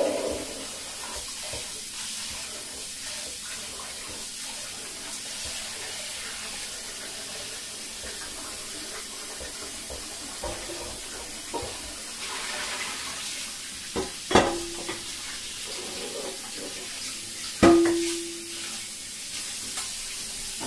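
Kitchen work: a steady hiss with a few knocks of cookware, two of them, about fourteen and eighteen seconds in, clanking loudly and ringing briefly.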